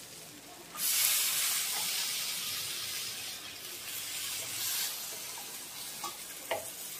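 Chopped poi (Malabar spinach) leaves dropping into a hot kadhai of oily fried gram set off a sudden sizzle about a second in. The sizzle carries on and slowly dies down, with a couple of light knocks near the end.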